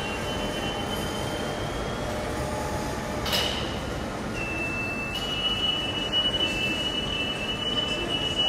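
Steady mechanical noise with a thin, continuous high whine. There is a single sharp click about three seconds in, and a new high whine sets in shortly after.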